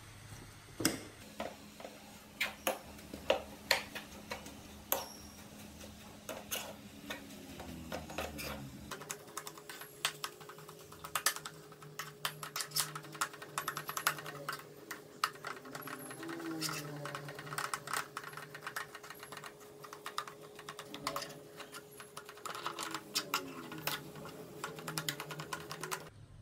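Metal spatula scraping and tapping against a non-stick frying pan as boiled potatoes and canned fish are mashed and stirred together, giving a run of irregular clicks and scrapes. A faint steady hum runs underneath.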